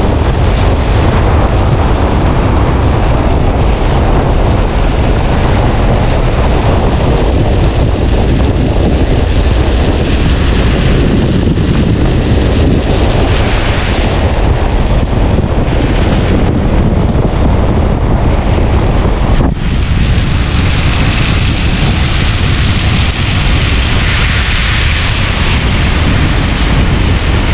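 Wind buffeting a GoPro's microphone held out of a moving car's window: a loud, steady rush with most of its weight in the low end.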